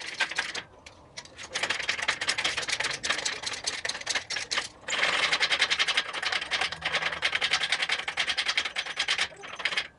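Rapid, even mechanical clicking, a little short of ten clicks a second by eye, in two long runs with a brief break a little before the middle.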